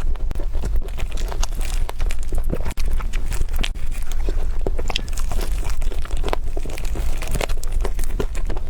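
Close-miked eating: crisp crunching bites and wet chewing of food, many sharp crackly clicks packed densely together.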